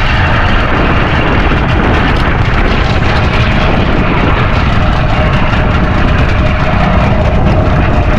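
Loud, steady rumble of strong wind buffeting the microphone at sea, about 30 knots of breeze.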